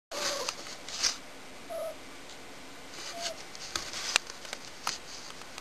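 A domestic cat giving three short, faint mews spread through a few seconds, with a few sharp clicks and rustles close by.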